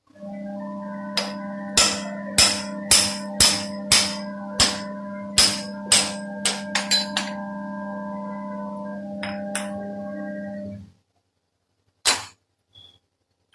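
A machine motor hums steadily while a hammer strikes metal about a dozen times, roughly two ringing blows a second, the blows fading off after about seven seconds. The hum cuts off near the end, and one more sharp knock follows.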